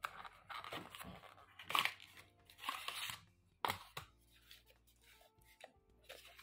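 Cardboard packaging handled and slid apart: the inner tray of a small box scraped out of its sleeve, with rustling and scraping that peaks about two seconds in and a sharp scrape near four seconds.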